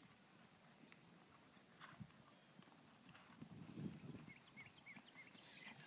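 Faint, muffled hoofbeats of a horse moving on grass, with a run of short high chirps near the end.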